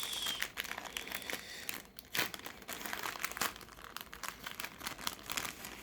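Packaging crinkling and crackling in the hands as a microSD memory card's retail pack is opened, with irregular small clicks and crackles throughout.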